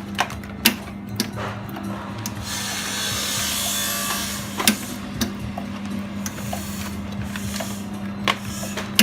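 FRD-1000 continuous band sealer running with a steady motor hum, with sharp clicks now and then and a rustling hiss from about two to four seconds in.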